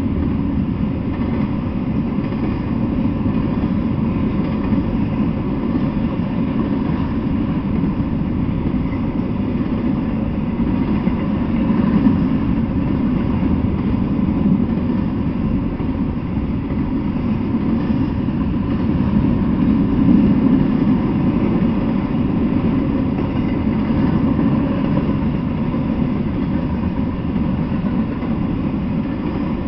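Freight train of double-stack container well cars rolling past, a steady low noise of wheels on the rails with no break.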